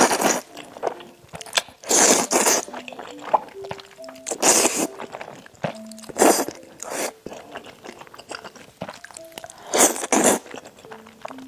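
Close-miked eating sounds: a loud, noisy slurp or bite about every two seconds, with quieter chewing between, over a faint background melody.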